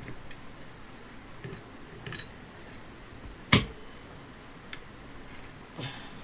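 Pliers working at a bit jammed in an impact driver: a few light metal clicks and one sharp click about three and a half seconds in, as the bit refuses to come free.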